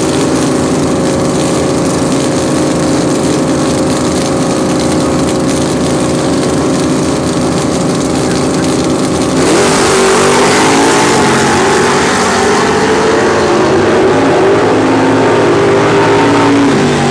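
Drag racing car engines held at steady revs on the starting line. About nine and a half seconds in they launch together, much louder, the engine pitch climbing and dropping as the cars accelerate down the track.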